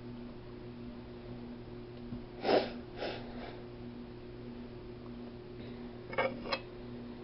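A few short eating noises over a steady low hum: two brief mouth sounds about two and a half seconds in, and two sharp smacks or clicks close together near the end.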